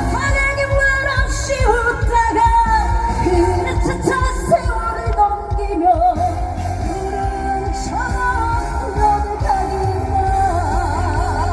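Trot song sung live by a woman over a loud backing track with a heavy steady bass. Near the end she holds a note with a wavering vibrato.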